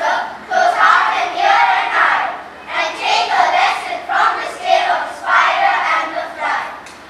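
A group of children reciting a poem together in unison through microphones, in rhythmic chanted phrases with short pauses between lines.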